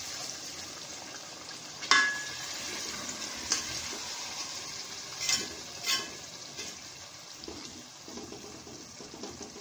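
Potatoes and masala sizzling in a metal pot as water is poured in, while a metal ladle stirs them and clinks against the pot a few times, loudest about two seconds in.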